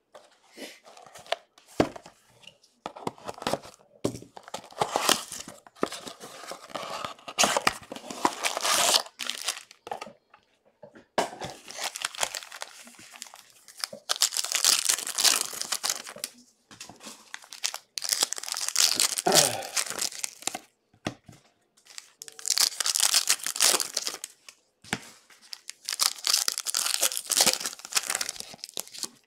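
Trading-card pack wrappers being torn open and crinkled by hand, in repeated crackly stretches of a few seconds each with short pauses between.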